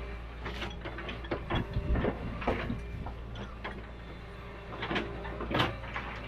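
Hitachi UH043 excavator at work, its engine running steadily under irregular clanks and knocks as the bucket digs into a rocky bank. The loudest knock comes near the end.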